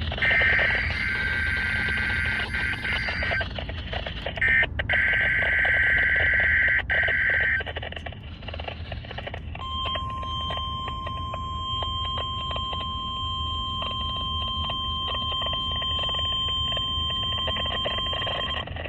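NOAA Weather Radio test signal heard through a weather radio receiver. First come two roughly three-second bursts of shrill, warbling SAME digital header tones. After a short gap, the steady single-pitch 1050 Hz warning alarm tone sounds for about nine seconds and cuts off near the end, with static crackle throughout.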